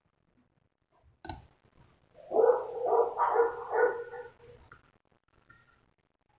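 An animal call in the background: a string of about four loud, quick pitched calls lasting under three seconds, after a single sharp click about a second in.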